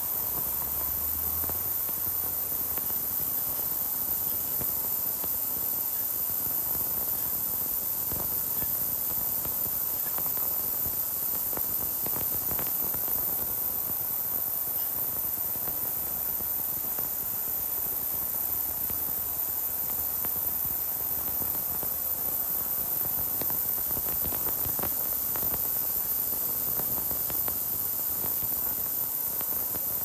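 Automatic washing machine for steel spatulas running: a steady, even hiss, strongest in the highest pitches, with a faint hum beneath it.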